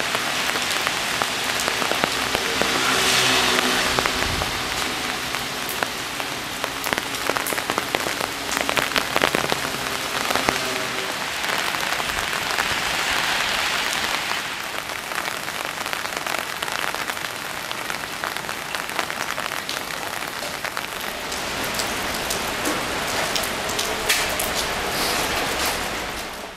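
Heavy rain from an approaching typhoon, pouring steadily, with many close drops ticking and pattering; it swells louder and softer at times.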